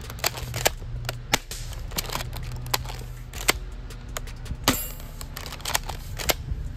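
Double Eagle M56B spring-powered airsoft shotgun being cycled and fired: a string of sharp, irregularly spaced snaps and clicks, about a dozen, from the pump-action and shots, over a steady low hum.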